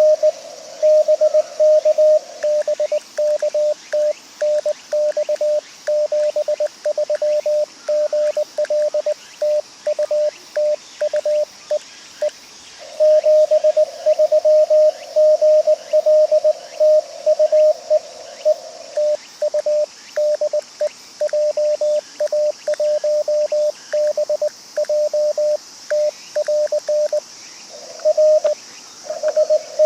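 Morse code (CW) from an amateur radio transceiver: a single pitched tone keyed on and off in dots and dashes, over faint band hiss.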